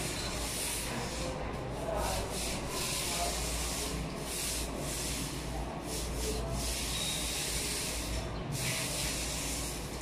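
Paint roller on an extension pole being rolled back and forth over a painted surface: a steady scratchy rubbing, broken by several brief pauses.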